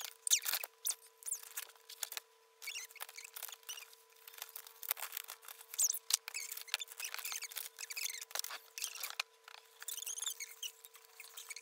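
Paper being handled and cut on a desk while a paper puppet is made: a busy run of quick scratchy clicks, rustles and small squeaks, over a thin steady tone.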